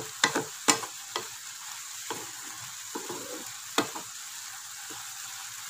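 A wooden spatula stirs cooked raw jackfruit and mango pieces in a nonstick pan, scraping and knocking against the pan, most often in the first second and then only now and then. Underneath runs a steady sizzle of the liquid still cooking down.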